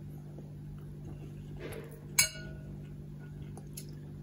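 A metal spoon clinks once against a ceramic bowl about two seconds in, with a brief ringing after it, over a faint steady low hum.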